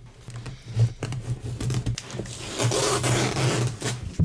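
Packing tape on a cardboard box being cut and scraped open, a rasping scrape that gets louder and fuller about two and a half seconds in, with short scratchy strokes before it.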